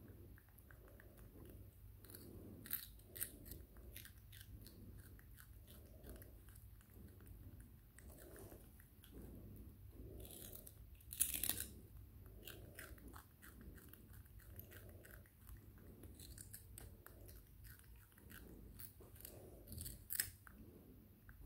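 A baby macaque biting and chewing a raw cucumber: soft rhythmic chewing a little over once a second, with sharp crunches as it bites, the loudest about halfway through.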